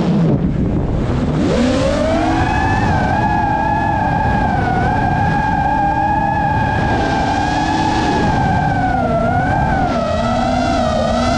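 FPV freestyle quadcopter's brushless motors whining, picked up by the onboard GoPro with a low rush of wind. The pitch is low at the start as the throttle is eased off, climbs back about a second and a half in, then holds with small wobbles as the pilot works the throttle.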